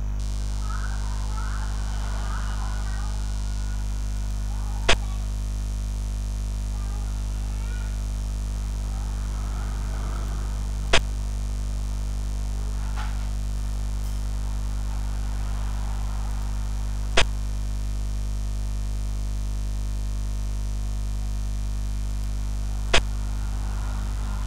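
Steady low electrical hum, with a short sharp click about every six seconds, four in all: the piece-placing sound of a digital xiangqi (Chinese chess) board as each move is played.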